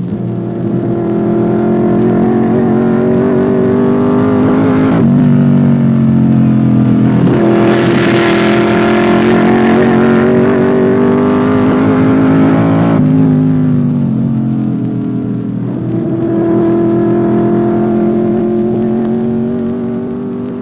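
Scarab racing car's Chevrolet V8 engine running hard at speed. Its pitch climbs and then steps down sharply several times, about five, seven and thirteen seconds in, and it is loudest and harshest in the middle stretch.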